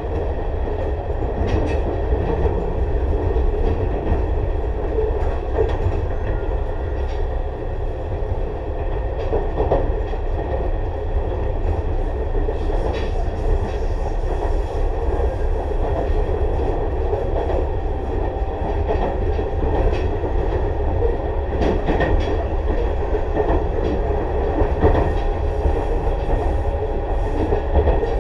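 Tobu 6050 series motor car with TM-63 traction motors running between stations, heard from inside the car: a steady rumble of wheels and motors on the rails, with occasional sharper clacks from the wheels.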